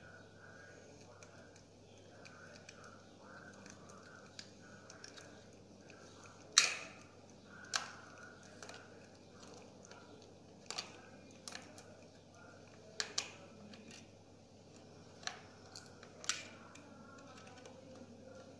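Kitten crunching on a lizard: about ten sharp, irregular crunches, the loudest about six and a half seconds in, over a faint background murmur.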